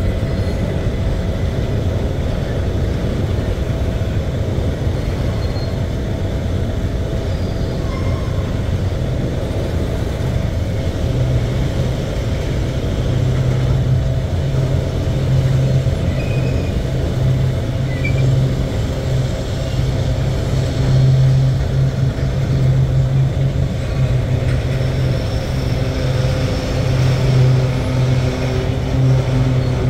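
Freight train of grain hopper wagons rolling slowly past, heard from inside a car: a steady low rumble, with a low hum that grows stronger about a third of the way through.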